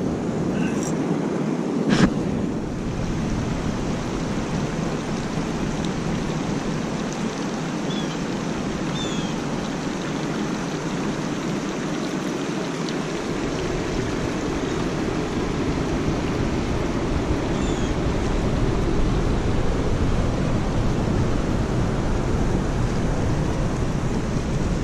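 Steady rush of flowing river water. There is a single knock about two seconds in and a few faint high chirps. Wind rumbles on the microphone in the second half.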